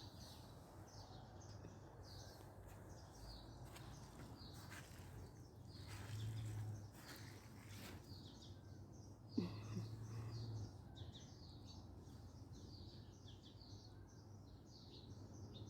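Faint, repeated short chirps of small birds. Beneath them runs a low hum that swells briefly twice, with a single knock partway through.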